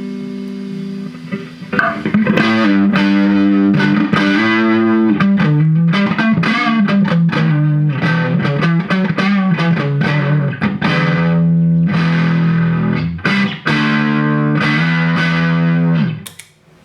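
Fender Stratocaster electric guitar played through a compressor pedal into a Vox Pathfinder 15R amp: a chord rings and fades, then a run of quickly picked notes and chords, even in level, that stops short near the end.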